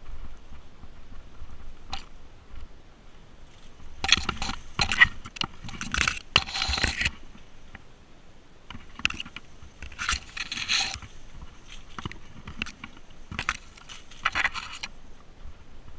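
Mountain bike rolling over rough ground: tyres crunching on loose stones and the bike rattling in irregular bursts.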